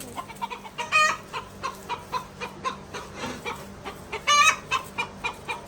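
Chickens clucking in quick, repeated short calls, with a louder squawk about a second in and another about four seconds in.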